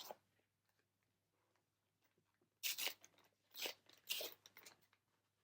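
Foil wrapper of a trading card booster pack crinkling and tearing open in three short crunchy bursts about halfway through, after a quiet start.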